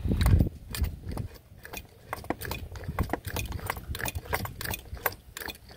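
Nikki carburetor's accelerator pump linkage worked by hand over and over: a run of light mechanical clicks, about three or four a second, after a low thump at the very start. This is a bench test of the accelerator pump, pumping fuel through to check that it squirts.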